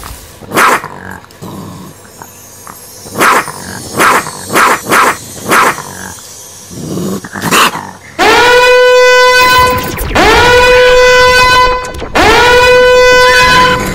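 About seven short, sharp animal barks and growls come first, played loud as a deterrent sound. About eight seconds in they give way to three long, steady horn blasts of about one and a half seconds each, all on the same pitch, which are the loudest sound here.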